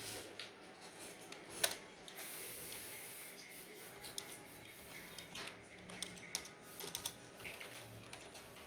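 Scattered light clicks and taps, irregular and a few seconds apart, with a short hiss about two seconds in.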